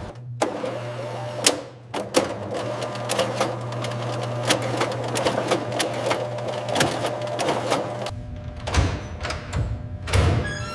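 A small printing machine running: a steady low hum under a rapid, irregular stream of clicks and ticks as paper feeds through. The hum stops about eight seconds in, and a few scattered mechanical clicks and a louder clack follow near the end.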